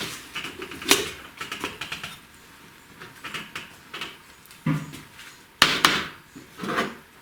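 Scattered knocks and metallic clinks as a piston and connecting rod are fitted into the cylinder block of a VAZ 2106 engine, the loudest knock coming a little past halfway.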